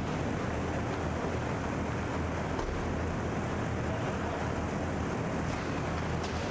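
Steady rushing background noise of an indoor inline hockey rink, with a low hum and a few faint clicks from play on the floor.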